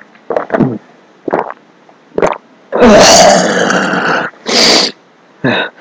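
A loud, spluttering, fart-like blurt lasting about a second and a half, then a short sharp puff of breath: laughter bursting out through lips and a hand clamped over the mouth.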